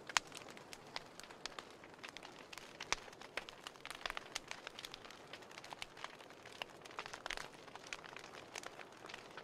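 Wood fire burning in a fireplace: logs crackling with frequent, irregular sharp pops over a steady soft hiss, one louder pop just after the start.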